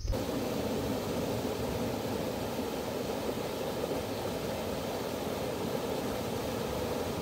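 Stream water rushing and churning over a low rocky ledge, a steady, even rush.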